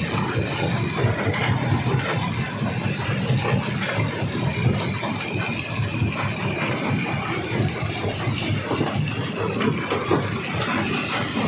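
Stone crusher running steadily: a loud, dense machine noise with irregular clatter throughout.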